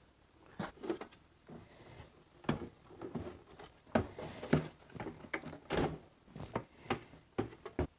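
Harbor Freight Titanium welder being lowered into a plastic Milwaukee Packout crate, its case knocking and scraping against the crate's walls. There is a loose string of light knocks and rubs, with the strongest about two and a half, four and six seconds in.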